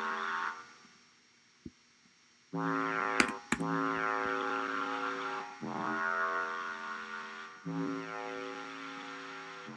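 Synth bass playing long held notes through a reverb effect. The first note fades out with a reverb tail about half a second in. After about two seconds of near quiet the line starts again with several sustained notes, and a couple of sharp clicks come about three seconds in.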